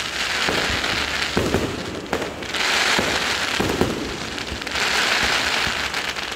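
Fireworks going off: a string of sharp bangs and thumps, with bursts of dense crackling that swell and fade in waves about every two seconds.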